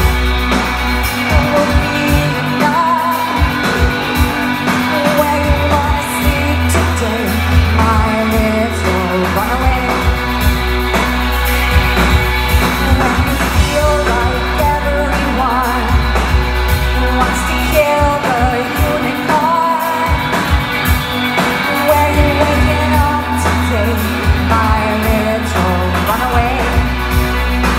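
Synth-pop band playing live: female singing over a sustained synthesizer bass line that shifts note every few seconds, with a steady drum beat, recorded on a phone in a concert hall.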